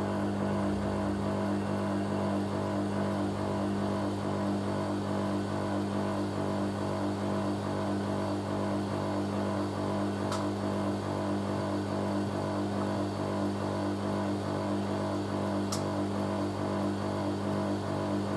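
Hoover A3060 Electronic 1100 washing machine spinning at a steady high speed, its motor giving a steady, even drone. The owner thinks the load might be a little out of balance, with the drum slightly loose in spin.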